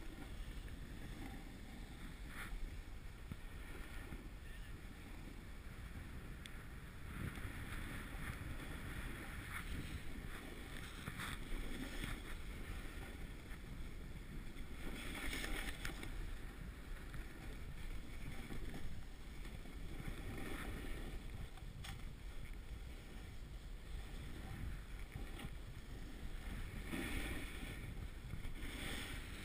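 Snowboard sliding over packed snow: a steady scraping hiss that swells every few seconds, over a low rumble of wind on the microphone.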